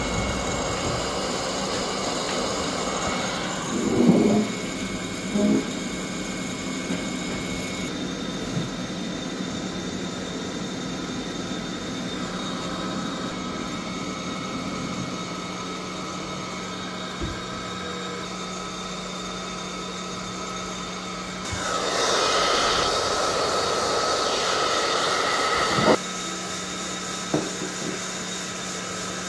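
STK sample roaster's hot-air blower running steadily with a low hum as the roast starts and hot air comes up through the chamber. A louder rush of air swells for about four seconds near the end and stops with a click.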